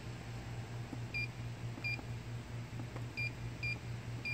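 Short, high keypad beeps from a DigiWeigh DWP-102N weighing indicator as its buttons are pressed to step through the settings menu: about four brief single-tone beeps, over a steady low hum.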